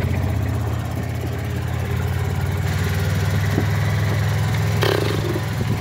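Four-wheeler (ATV) engine running at a steady, even pitch.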